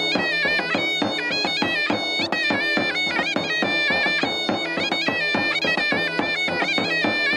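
Traditional folk music: a shrill reed-pipe melody played over a steady held drone, with a drum beating steadily underneath.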